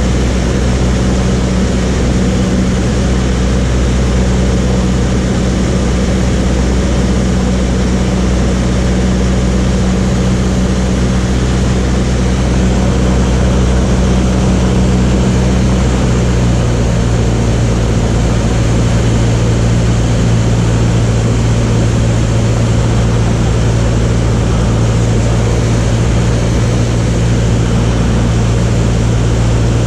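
A light propeller aircraft's piston engine drones steadily, with a change in the engine note a little past halfway.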